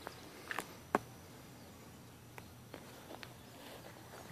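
A few short soft clicks and knocks, the sharpest about a second in, over a quiet steady outdoor background.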